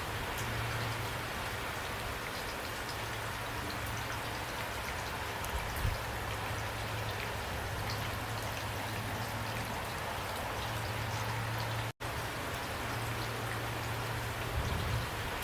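Steady rain falling, a dense even hiss with individual drops ticking through it and a low hum underneath at times. The sound cuts out for an instant about twelve seconds in.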